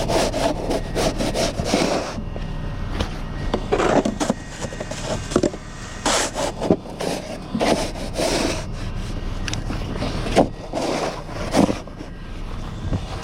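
Snow shovel scraping and scooping packed snow in repeated, irregular strokes, over a steady low rumble.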